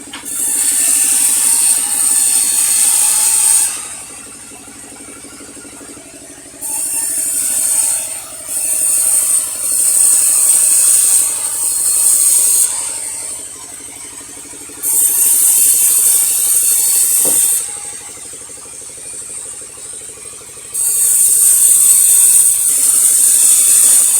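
Sawmill saw ripping a log in repeated cuts: a loud hissing rasp of the blade in the wood lasting a few seconds at a time, coming five times, with the machine running steadily and more quietly between cuts.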